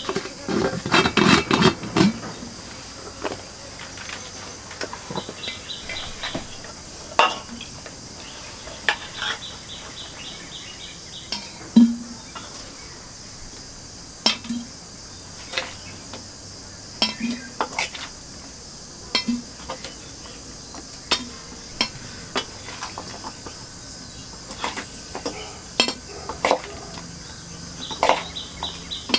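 Metal spoon scraping and clinking against a stainless steel bowl as chunks of jackfruit pickle are spooned into a glass jar, in scattered short knocks with a louder cluster about a second in.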